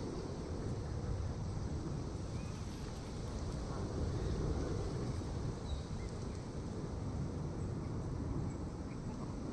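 Steady low outdoor rumble, with a few faint, brief high chirps scattered through it.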